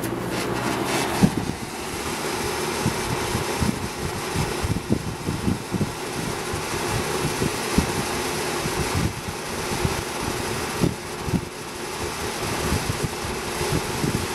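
1987 Toastmaster 20-inch box fan (model 4435D) running: a steady rush of air with irregular low thumps.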